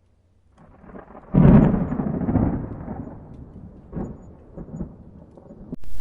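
A thunderclap: a rumble builds, breaks loud about a second and a half in, then rolls away slowly, with a couple of smaller rumbles after it.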